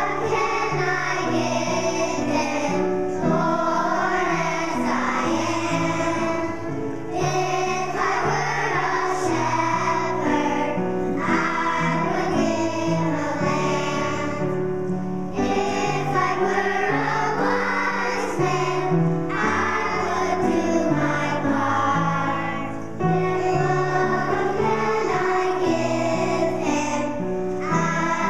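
Children's choir singing a song in phrases, with a steady instrumental accompaniment underneath.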